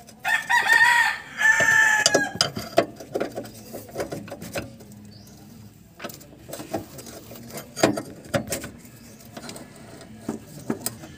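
A rooster crows once, a pitched call of about two seconds in two parts, followed by scattered short clicks and knocks.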